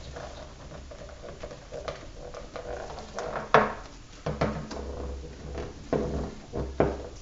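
Handling noise: rustling with several knocks, the loudest about three and a half seconds in and a few more near the end.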